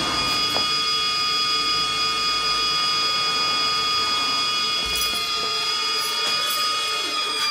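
Paper cone speakers playing a steady, buzzy electronic tone with a stack of overtones, holding one pitch throughout.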